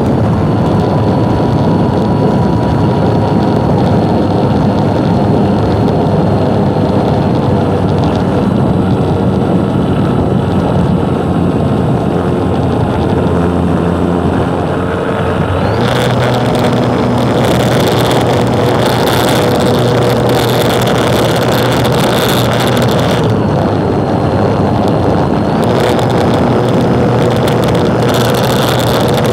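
Aircraft engine and propeller running steadily at a constant throttle. Wind buffets the microphone in two long gusts in the second half.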